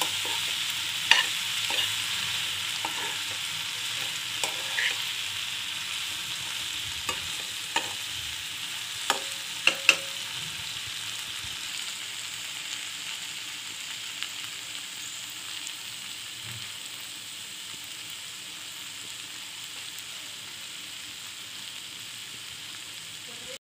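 Chopped okra sizzling as it fries in oil in a nonstick kadai, with a spatula stirring and clicking against the pan a number of times during the first ten seconds or so; after that only a steady sizzle, slowly getting quieter.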